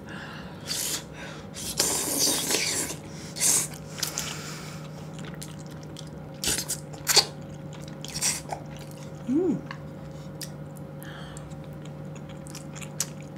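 Close-miked slurping and chewing of tteokbokki with Chinese glass noodles: a long wet slurp about two seconds in, then chewing with several sharp clicks and smacks. A faint steady hum runs underneath.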